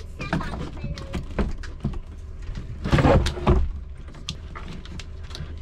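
A run of short knocks, clicks and clunks of hands-on work over a steady low hum, with a louder clattering clunk about three seconds in.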